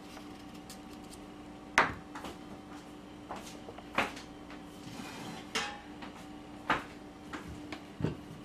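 Scattered knocks and clatters of a kitchen knife and cut vegetable pieces being handled on a wooden cutting board, about eight in all, the sharpest about two seconds in. A faint steady hum runs underneath.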